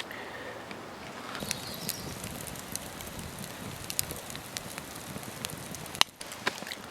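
Campfire crackling: irregular sharp snaps and pops over a low steady hiss.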